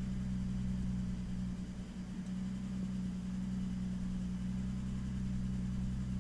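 Turbocharged GM 3800 V6 (L67) idling steadily, heard from inside the car's cabin. The engine is misfiring on cylinders three and six, which the owner puts down to bad plug wires.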